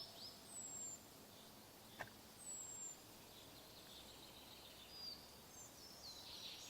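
Quiet early-morning forest ambience with small songbirds calling: a quick trill at the start, thin high whistles sliding downward twice, and scattered chirps near the end. One short sharp click about two seconds in.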